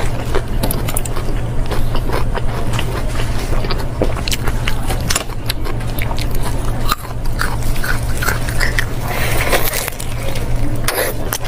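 A person biting and chewing fatty meat close to the microphone: irregular wet smacks and clicks of mouthfuls being chewed.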